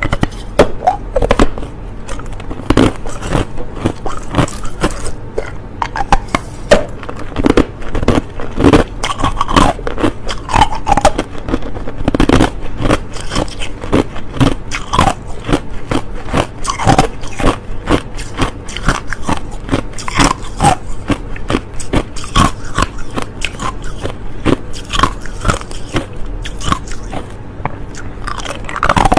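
A person biting and crunching hard, clear crushed ice close to the microphone. It is a rapid, irregular series of sharp, crackly crunches, several a second.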